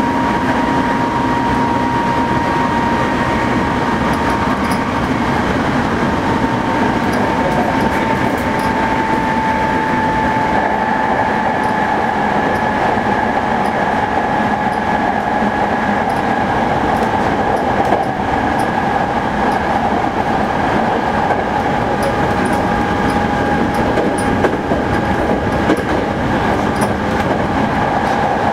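Hankyu 8000 series electric train running at speed: a steady rumble of wheels on the track, with a high whine from the electric drive that slowly falls in pitch.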